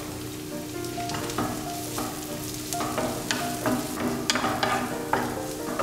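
Button mushrooms, shallot and garlic sizzling in olive oil in a frying pan. A wooden spatula stirs and scrapes through them, about two strokes a second from about a second and a half in.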